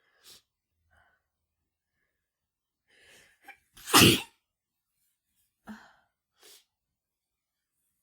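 A woman sneezing once, loudly, about halfway through, after a few quick catching breaths. The sneeze is brought on by chhinkni sneezing snuff while she has the flu. Short, faint breaths follow.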